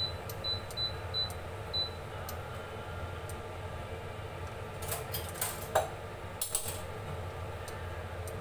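Five short, high beeps in the first two seconds, as a glass electric cooktop's touch controls are pressed, over a steady background hum. A few light clicks and clatters come about five to seven seconds in.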